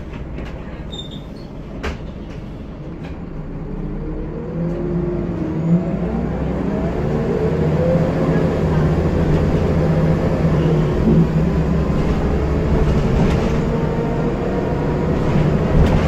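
Scania L94UB bus's rear-mounted diesel engine, heard inside the passenger saloon, running low with a few clicks and knocks. About four seconds in it works up as the bus pulls away, its note rising, easing and rising again, then settles into steady running.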